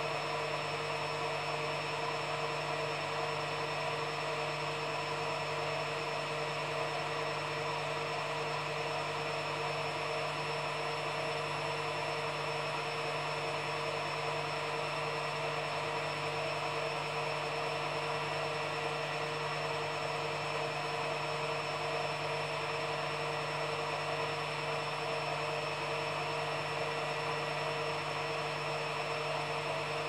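Front-loading washing machine running steadily: a constant hum with a few held tones over an even hiss, unchanging throughout.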